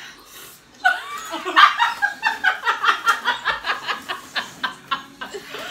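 A woman laughing hard in a long fit of quick, rhythmic bursts, about four or five a second, starting about a second in.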